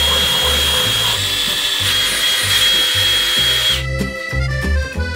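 Cordless drill running steadily with a high whine as it reams out an undersized hole in a car's painted body panel, stopping abruptly about four seconds in.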